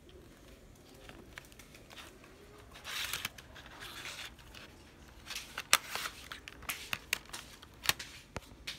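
Plastic CD jewel case being handled: a scraping rustle about three seconds in, then a string of sharp plastic clicks and taps as it is turned over.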